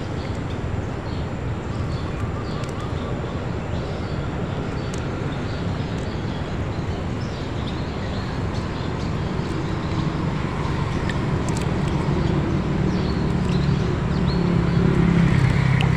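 A motorboat engine running steadily, growing louder over the last several seconds, with water dripping and splashing as a gill net is pulled up out of the water by hand.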